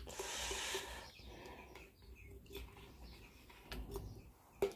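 Workshop handling noise: a short hiss in the first second, then scattered light clicks and small knocks of metal parts, with one sharper knock near the end.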